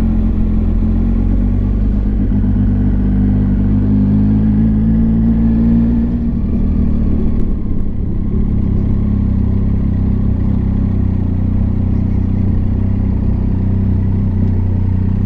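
Motorcycle engine running steadily while riding along. Its note shifts about six seconds in.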